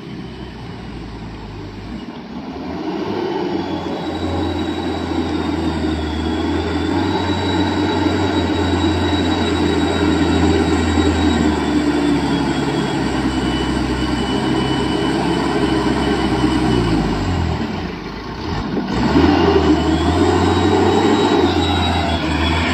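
Light diesel dump truck's engine labouring as it pulls through mud, growing louder as it approaches. About three-quarters through, the engine note falls and dips briefly, then picks back up.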